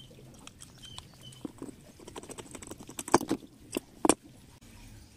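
Small metal clicks and knocks of hand-tool work as screws come out and an aluminium heat-sink bracket is taken off a cable TV amplifier board. The loudest knocks come about three seconds in and again about a second later.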